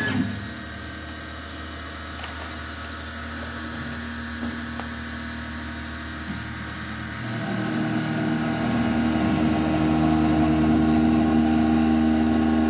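Langmuir Systems MR-1 CNC mill running with its flood coolant spraying. About seven and a half seconds in, its 3/16-inch five-flute end mill starts slotting into 8670 carbon steel, and a louder, steady whine of several tones sets in.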